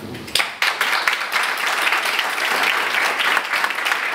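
A room of people applauding, the clapping starting abruptly about half a second in and going on steadily.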